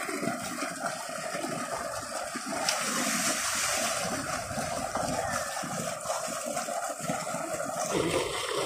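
Tube well outlet pouring a heavy jet of water into a concrete tank: a steady rushing splash. About three seconds in the splashing grows brighter and a little louder as a person gets under the stream.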